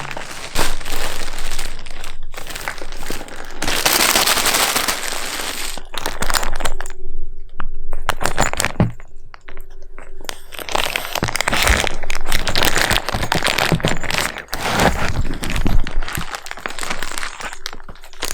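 A cardboard shipping box and its packing being jostled and handled, crinkling and crackling with many sharp cracks.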